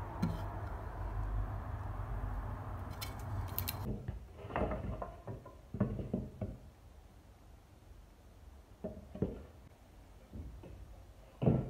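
Old wooden boards being handled: a steady low rumble stops suddenly about four seconds in. After it comes a scattered string of hollow wooden knocks and clatters as the boards are picked up and set against one another.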